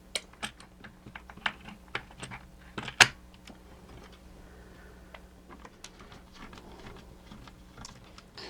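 Small plastic and metal parts of a mechanical animated figure being handled on a workbench: irregular clicks and taps, with one sharper knock about three seconds in, then fewer and fainter ticks.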